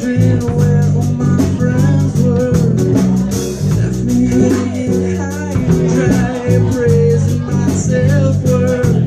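Live band playing an instrumental passage: electric guitar and bass guitar over a drum kit with a steady beat.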